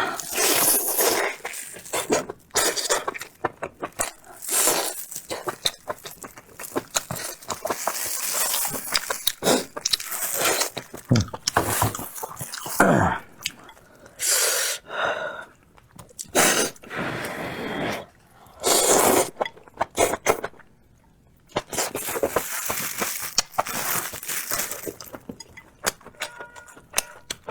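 Close-miked mukbang eating sounds: a person chewing and biting food in irregular bursts, with scrapes and clinks of tableware.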